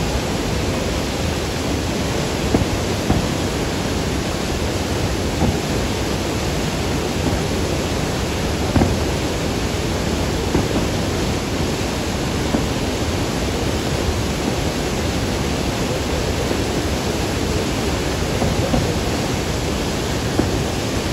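Steady roar of Niagara Falls and the rushing river. Fireworks bang faintly above it every few seconds.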